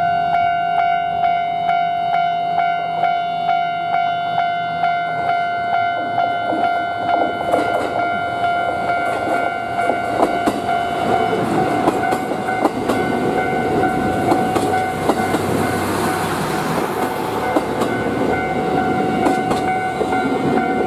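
Japanese level-crossing alarm ringing in a steady pulsing rhythm while a JR HB-E300 series 'Resort Shirakami Buna' hybrid diesel train approaches and passes close by. The train's rumble and wheel clatter over the rail joints build from about a third of the way in and are loudest about three-quarters through.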